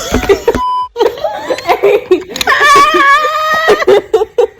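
Girls laughing and squealing, with one long high-pitched squeal in the middle. A short steady beep sounds about half a second in.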